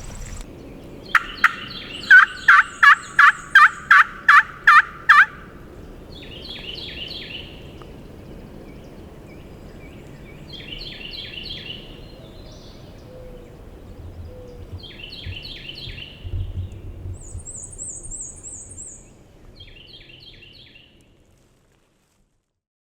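Wild turkey calling: a loud run of about ten evenly spaced yelps, then a gobbler gobbling four times, several seconds apart and fainter. A small bird's short high trill comes between the last two gobbles.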